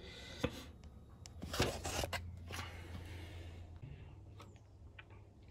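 Handling noises: light rustling and a few sharp clicks over a faint steady low hum, quieter in the last two seconds.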